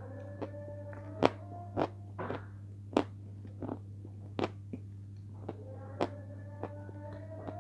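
Close-miked mouth sounds of eating soft blue cream: sharp wet smacks and clicks of lips and tongue, one every half second to a second, over a steady low hum.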